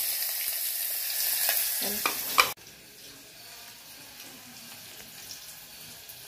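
Hot oil sizzling loudly in a pot on a gas stove as tempering (phodni) ingredients go in, with a few sharp clicks near the end of the loud part. About two and a half seconds in it cuts abruptly to a quieter, steady sizzle.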